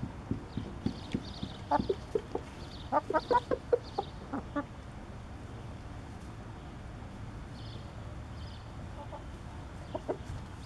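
Rooster giving his food call, a run of short, quick clucks that bunch fastest about three seconds in, with a few more near the end, calling his hens to food he has found.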